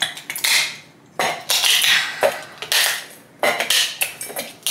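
A glass shot glass grinding peppercorns and fennel seeds against the bottom of a metal bowl, used as a makeshift pestle. It makes a gritty scraping with clinks, in about four rough strokes of a second or so each.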